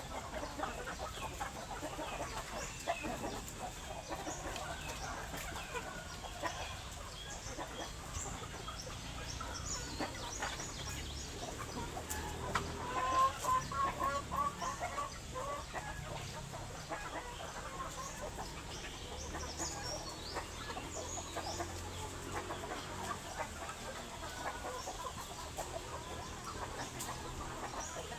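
A flock of chickens clucking, with many short calls overlapping, and a louder run of calls about halfway through.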